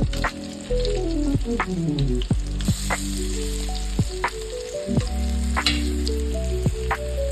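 Background music with a beat and deep bass, over food sizzling as it fries in a pan; the sizzle grows more prominent from about three seconds in.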